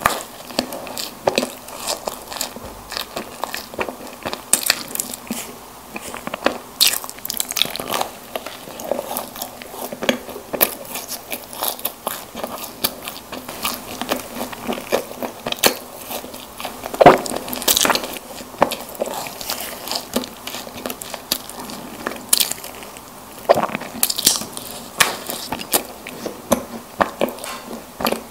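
Close-miked eating of soft packaged snack cakes: biting and chewing, with many small, irregular sharp clicks and one louder bite a little past halfway.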